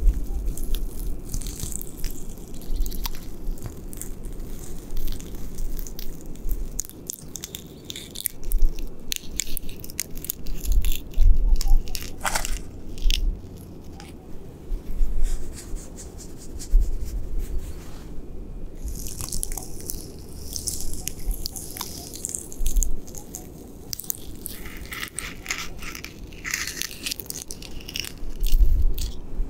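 A knit-gloved hand scratching and rubbing rough, scaly tree bark close to the microphone: irregular dry scratching and crackling strokes, busiest in the last ten seconds, with low bumps underneath.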